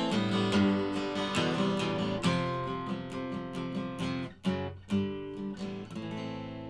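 Acoustic guitar played solo in the closing bars of a song: strummed chords that grow steadily quieter, the last few left to ring out.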